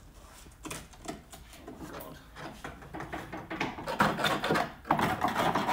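Scattered light taps and knocks on a BMW E30's rusted underbody, then from about four seconds in a rough, steady scraping over the corroded sill metal.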